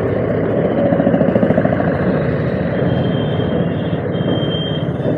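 Scooter engine running at low speed as the rider slows and pulls over, with road and traffic noise.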